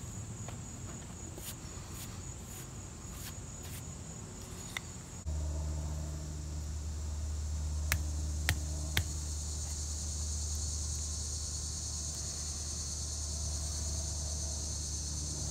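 Insects chirring steadily in a high, continuous drone. About five seconds in, a low steady hum starts abruptly and stays. A few seconds later come three sharp clicks as a knife cuts a notch into a thin paint-stir-stick fireboard.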